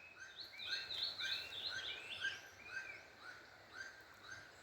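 Wood-rail (saracura) calling: a fast, faint run of repeated short whistled notes, several overlapping, busiest in the first two seconds and thinning out towards the end.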